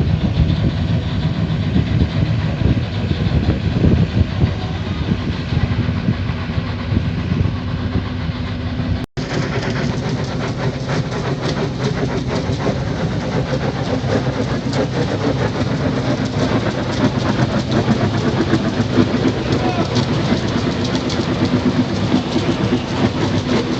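Open gas well blowout: gas jetting uncontrolled from the wellhead with a loud, steady rushing roar. The sound drops out for an instant about nine seconds in, then comes back harsher, with fine crackling.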